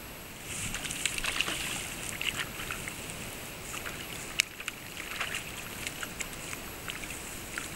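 Shallow stream water splashing close to the microphone in many small, irregular splashes and clicks over a steady hiss.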